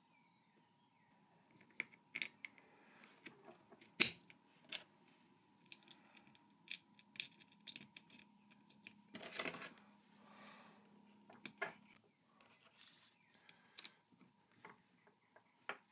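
Faint, irregular light metallic clicks and clinks of small parts and hand tools being handled, with a brief rustle about two-thirds of the way through.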